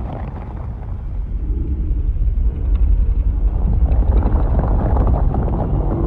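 Monster atomic-breath sound effect for Godzilla: a loud, deep rumbling rush of noise that swells in strength through the first couple of seconds and then holds.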